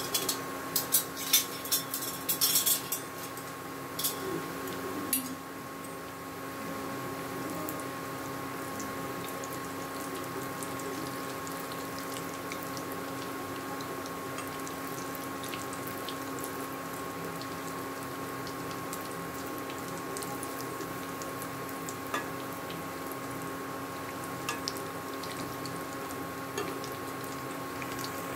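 Hot oil sizzling steadily as battered pieces deep-fry in a pan, with a steady electrical hum underneath from the induction cooktop. A cluster of sharp clicks and crackles comes in the first few seconds, then the sizzle settles.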